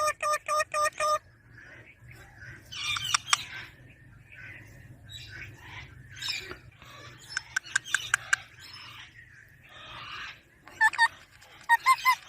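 Ringneck parrot calling: a quick run of short, repeated shrill calls at the start, then softer chattering with a few sharp clicks, and more short calls near the end.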